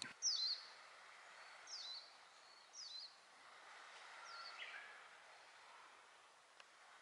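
A small bird calling: a short chirp falling in pitch, repeated four times a second or so apart, with one lower call about four and a half seconds in, over faint steady outdoor background noise.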